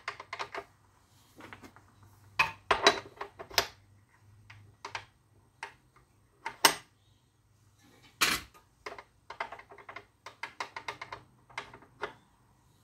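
Irregular clicks, taps and knocks of circular saw parts and tools being handled during a teardown, with two louder knocks a little past the middle.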